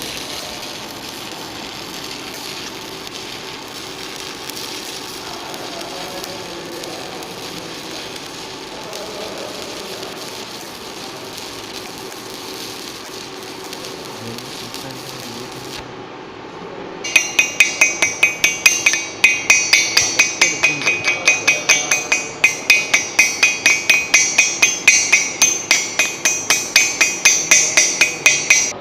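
A steady hiss, typical of arc welding on the stainless-steel pipe, runs for about sixteen seconds and then stops. About a second later a hammer starts striking the steel pipe fast, about four blows a second, each ringing metallically, until the end.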